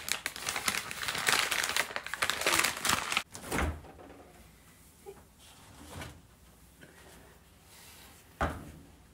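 Plastic wrapper being peeled off ground beef and crumpled, crinkling for about three seconds, followed by a single dull thump and then only faint handling noises.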